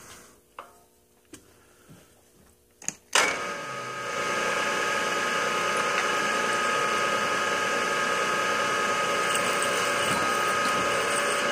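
A few light clicks and knocks, then about three seconds in a sharp click as the PM 932M milling machine's spindle starts and runs steadily with a steady whine. Its drill bit, which is a little dull, cuts a tap-drill hole through an aluminium drive wheel.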